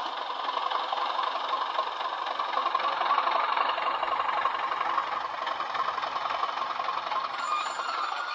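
Bachmann Class 37 model locomotive's factory DCC sound file of a diesel engine running, played through an aftermarket twin iPhone speaker. It runs steadily with little bass and swells a little around three seconds in.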